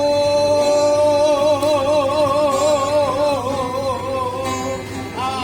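A man singing a Batak Toba song over instrumental accompaniment. He holds one long note that breaks into a widening vibrato, lasting about four seconds, then starts a new, higher note near the end.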